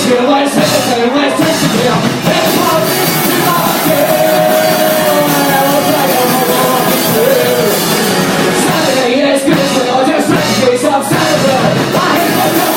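Rock band playing a blues number, with singing.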